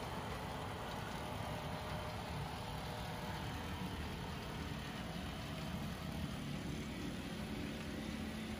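HO scale model Great Northern diesel locomotive running along the layout, a steady, engine-like low rumble and hum that grows slightly stronger near the end.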